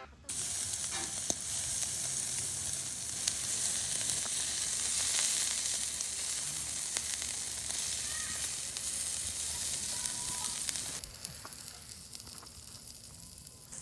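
Food sizzling and crackling as it fries in hot fat, a dense steady hiss that drops to a quieter sizzle about eleven seconds in.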